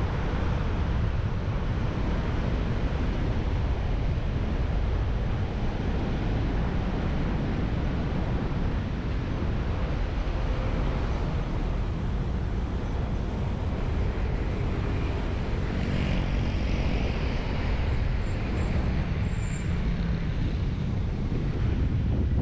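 Steady road and traffic noise from a car driving on city streets: a constant low rumble of tyres and engine with a hiss of passing traffic.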